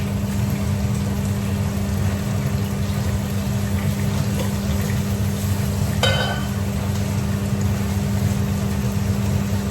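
Food cooking in a pan on the stove, a steady sizzling hiss over a constant low hum, with a brief utensil-like sound about six seconds in.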